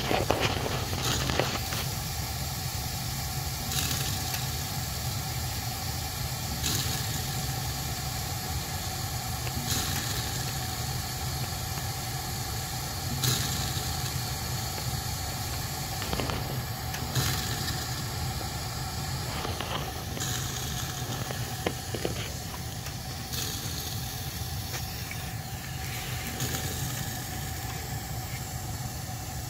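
Gas water heater burner firing: a steady rushing hiss over a low rumble, with a faint steady hum. It swells briefly about every three seconds.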